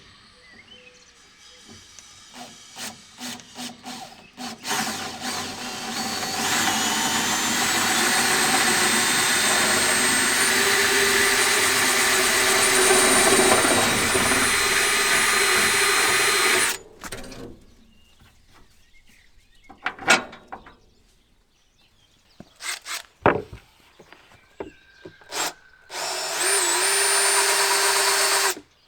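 A power drill runs in two spells: a long one of about twelve seconds with a steady whine that steps up in pitch soon after starting, and a short one of two or three seconds near the end. Light clicks and knocks of handling come between them.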